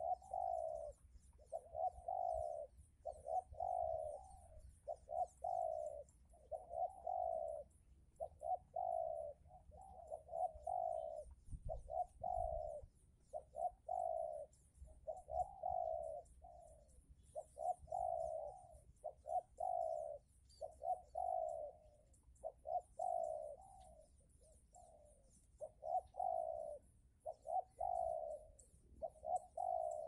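Spotted dove (tekukur) cooing over and over in a steady run of short coos with barely a break between them.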